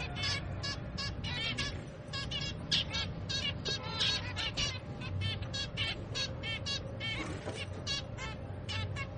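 Zebra finch chicks giving rapid, continuous begging calls, many short chirps a second, as they are fed.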